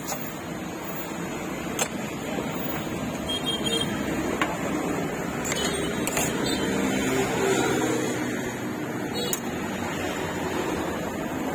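Steady street-market background noise with a low hum, a few sharp clicks, and a faint engine-like drone swelling near the middle.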